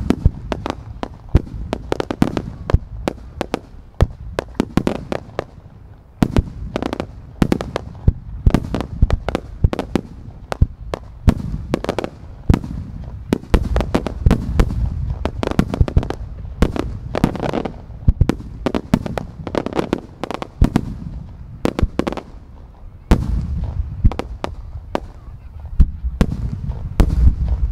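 Japanese starmine fireworks barrage: aerial shells bursting in rapid succession, several sharp bangs a second, over a low echoing reverberation.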